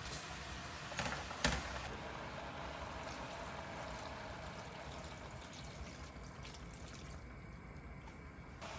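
Liquid being poured into a cooking pot for cabbage soup, a steady pouring sound after two sharp clicks about a second in.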